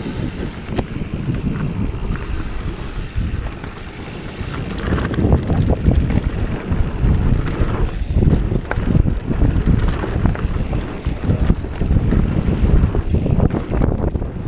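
Wind buffeting an action camera's microphone and the knobby plus-size tyres of a Santa Cruz Hightower 27+ mountain bike rumbling over a dirt trail at speed, with constant small rattles and knocks from the bike over rough ground. The rumble eases briefly about four seconds in, then picks up again.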